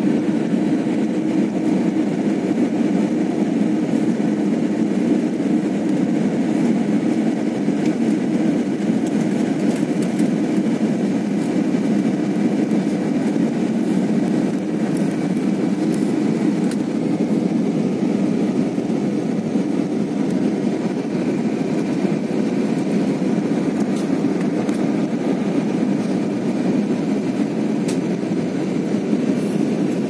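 Steady cabin noise of a jet airliner in cruise flight: the engines and the rush of air over the fuselage heard from a window seat, a constant low rumble that does not change.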